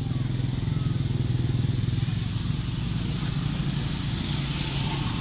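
A motor vehicle engine running steadily nearby, a low hum that is strongest in the first couple of seconds.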